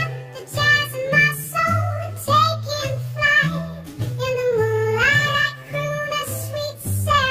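Background music: a high-pitched sung melody in a children's-song style over a bass line.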